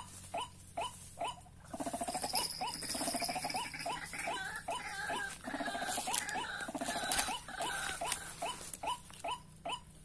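White-breasted waterhen (ruak-ruak) calls. A run of short, evenly spaced notes, about two or three a second, gives way about two seconds in to a louder, denser stretch of overlapping croaking calls, then the even notes return near the end.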